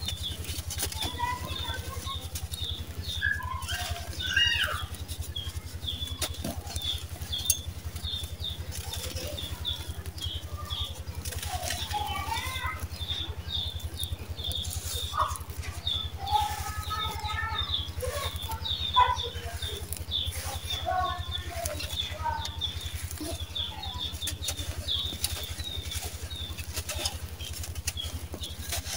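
Dry sand-cement lumps crushed and crumbled by hand, the gritty sand crunching and pouring through the fingers. A steady low hum and many short high chirps run underneath.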